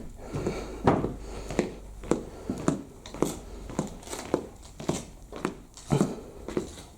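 Footsteps at a steady walking pace, about three steps every two seconds.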